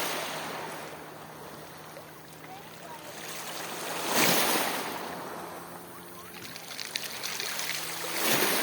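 Black Sea waves breaking on the shore about every four seconds, each one swelling up and washing out. A steady low hum runs underneath.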